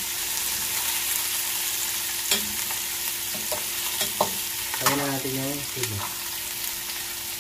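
Onions, lemongrass and chilies sizzling as they sauté in a little oil in an aluminium pot, with a long metal slotted spoon stirring and scraping through them and clicking against the pot a few times.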